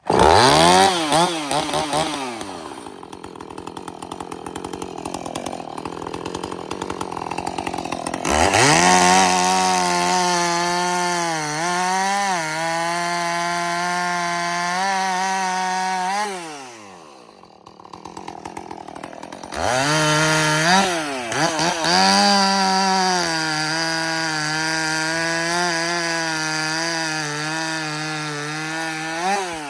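Husqvarna 450 two-stroke chainsaw revving up, dropping to idle, then running at full throttle twice for about eight seconds each time. Its pitch dips and wavers under load as it rips through wood, and it falls back to idle between the runs and near the end.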